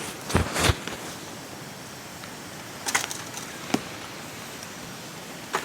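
Steady hiss of rain with a few sharp cracks and pops from a wood campfire: a quick cluster about half a second in, then single pops around three and four seconds and near the end.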